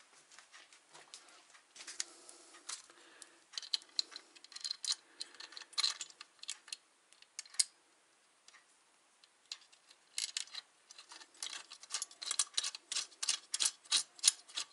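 Irregular light clicks and clinks of small metal hardware, such as bolts, nuts and washers, being handled while a motor is fitted to a drill press mount. They are sparse at first and come in a dense run near the end.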